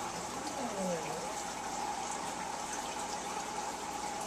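Steady trickle of water circulating in a large aquarium, with a faint steady hum.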